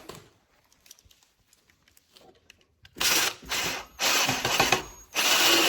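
Cordless drill driving a ConceaLoc hidden-clip screw into a composite deck board in three short bursts about a second apart, after a few faint handling ticks.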